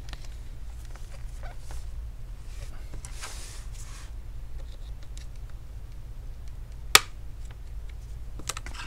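Gloved hands handling a laptop's plastic back plate: scattered light clicks and rubbing, with one sharp click about seven seconds in, over a low steady hum.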